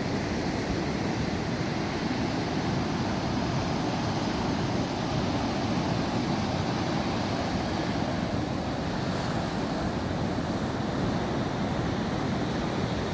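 Steady rushing roar of ocean surf.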